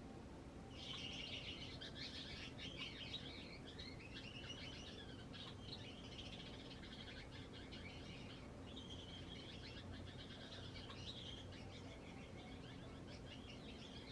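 Gouldian finches chirping and twittering: soft, high calls that start about a second in and run on with brief gaps.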